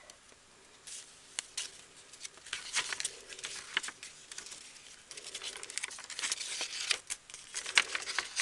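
Paper pages of a handmade journal being turned and handled: crisp rustling and crinkling with small ticks, sparse at first and busier in the second half.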